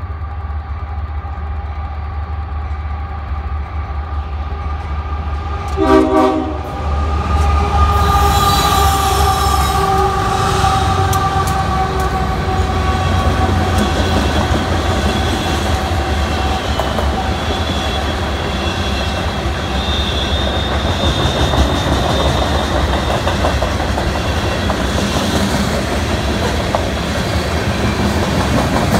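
A Union Pacific freight locomotive sounds its horn, a chord of several steady tones, as it approaches and passes, with a loud burst about six seconds in, and the pitch drops slightly as it goes by. The freight cars then roll past with a steady rumble and wheel clatter, and thin wheel squeal rises over it.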